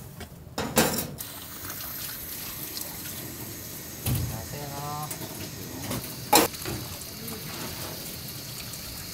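A steady stream of water running or pouring, with a sharp knock just under a second in and another about six seconds in.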